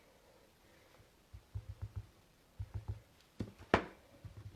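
Rubber-stamping tools being handled on a desk: two quick runs of soft taps, then a sharper click a little before the four-second mark and a few lighter ticks, as a stamp is inked and pressed down in a Stamparatus stamp positioner.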